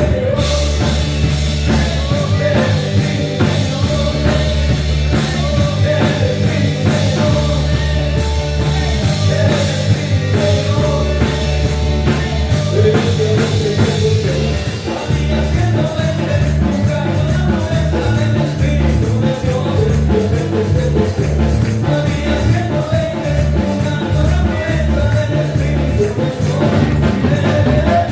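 Loud live worship music with a full band: drums keeping a steady beat over bass and electric instruments, with some singing or vocal melody.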